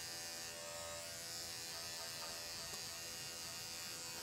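Andis five-speed electric dog grooming clippers running with a steady hum while trimming a small dog's coat.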